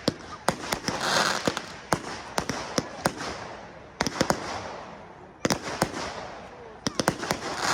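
Aerial fireworks display: shells bursting in a run of sharp bangs, some single and some in quick clusters, with a rushing hiss swelling between them.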